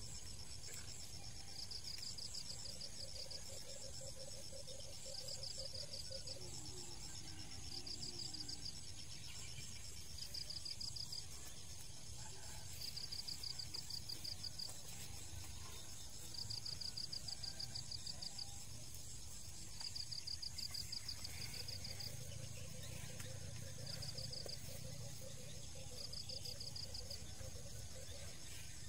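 Insects trilling outdoors: a high, pulsed trill about a second long repeats every two to three seconds, over a steady low rumble of background noise. A second, lower pulsed trill joins for a few seconds twice.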